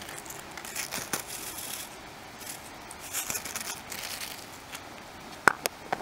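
Rustling and crinkling as shredded red cabbage is handled in a plastic container, followed near the end by a few sharp clicks as the container's lid is snapped shut.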